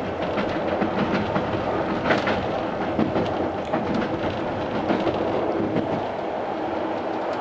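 A passenger train running, heard from inside the carriage. The wheels make a steady noise with irregular clicks and knocks over the rail joints, and there is one louder clatter about two seconds in.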